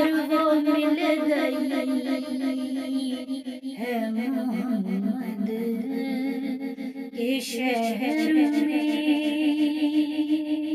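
A woman's voice singing a naat unaccompanied: a long wordless passage of wavering, ornamented melody over a steady hummed low note, dropping in pitch about four seconds in and rising again about eight seconds in.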